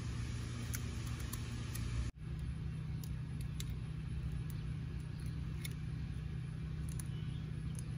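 A steady low mechanical hum with a few faint clicks. It drops out abruptly about two seconds in and comes straight back.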